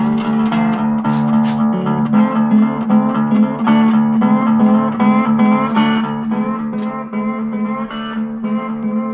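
Acoustic blues on a resonator guitar, a quick run of plucked notes with slide over a steady low bass note, played back over a speaker.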